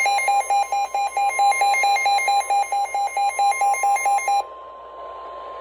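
NOAA Weather Radio alert sounding for a special marine warning: a rapid electronic beeping alarm, about six beeps a second, over the steady 1050 Hz attention tone. The beeping stops about four and a half seconds in, and the steady tone carries on.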